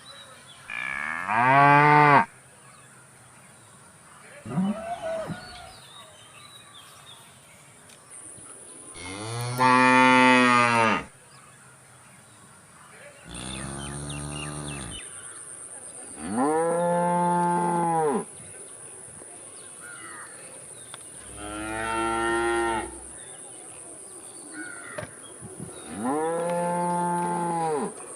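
Cows mooing: about seven separate moos, each lasting a second or two, a few seconds apart.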